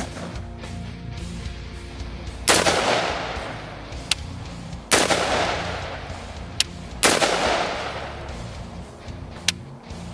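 5.56×45 rifle firing M855 green-tip rounds, single shots spaced about two to two and a half seconds apart, each loud crack trailing off in a long echo. A few short sharp clicks fall between the shots, over background music.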